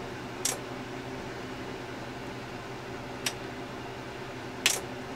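Steady low hum from the bench, broken by three sharp clicks, the loudest near the end, as test leads and clips are pulled off and clipped onto the bench power supply's output binding posts.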